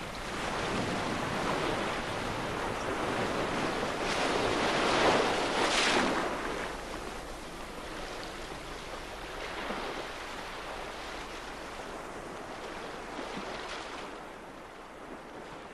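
Waves and wind at the shore, a steady rushing noise that swells about five seconds in and then slowly fades.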